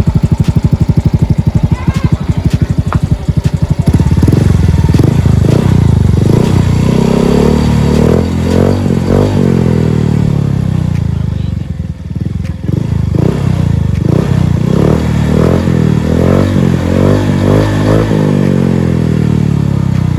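Yamaha Mio Soul i 125 scooter's single-cylinder engine running through an Apido V3 aftermarket exhaust pipe: idling with a quick, even putter, then revved again and again from about four seconds in, the pitch rising and falling with each blip.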